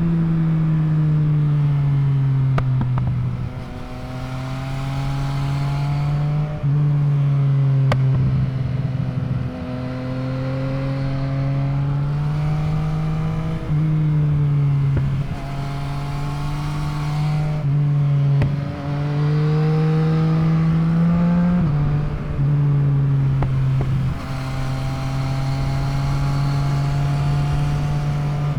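Yamaha MT-09's three-cylinder engine running under way as the bike is ridden, its pitch climbing and sagging, with sudden steps at gear changes and a few brief dips where the throttle is rolled off.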